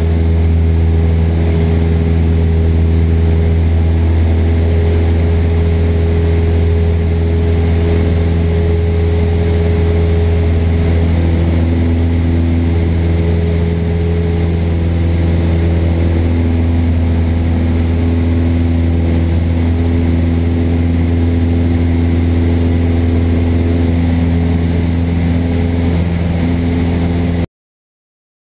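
Cessna 172's piston engine and propeller running at takeoff power through the takeoff roll and climb-out, a loud steady drone with a deep hum, heard from inside the cabin. It cuts off suddenly near the end.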